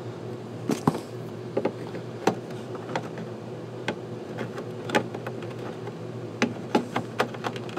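Hands rummaging and handling objects and cables while searching for a power cord: scattered sharp clicks and knocks, about a dozen, over a steady low hum.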